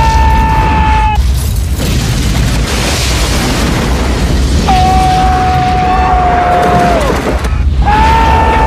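Massive fireball explosion rumbling continuously. Over it come long held screams: one at the start, a longer one in the middle that drops in pitch as it ends, and another near the end.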